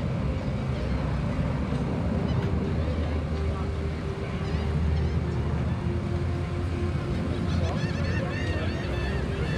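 Birds calling: a string of short arching calls, thickest near the end, over a steady low rumble and a faint steady hum.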